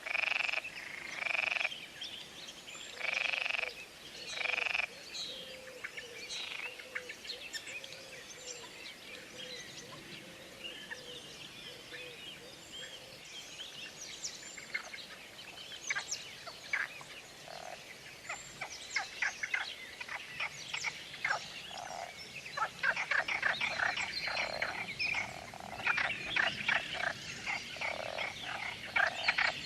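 A chorus of frogs croaking. There are a few long croaks in the first five seconds, then many short, rapid croaks that grow denser and louder toward the end.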